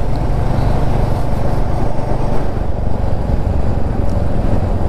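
Royal Enfield Meteor 350's single-cylinder engine running steadily under way, with wind noise on the microphone.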